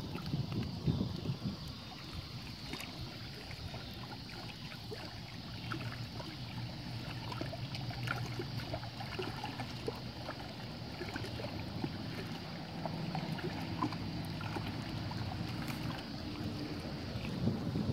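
Small waves lapping and splashing at the edge of a choppy lake, with wind buffeting the microphone at the start and again near the end.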